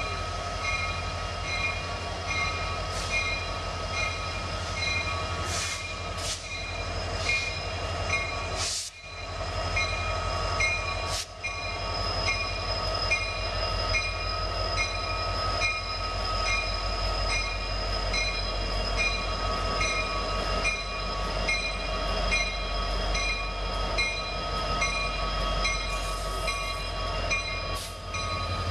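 Union Pacific diesel locomotives hauling an empty autorack train pass close by: a steady deep engine rumble with several high ringing tones over it, one pulsing a little faster than once a second. A few sharp clanks come in the first half.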